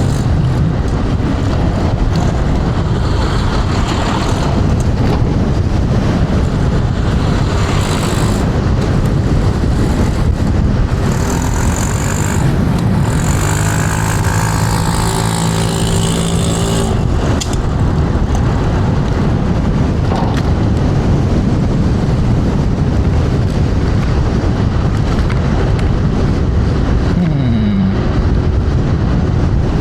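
Wind rushing hard over the rider's microphone, with road noise from an electric scooter riding at speed. In the middle, a steady pitched hum with several overtones comes in for a few seconds and then fades.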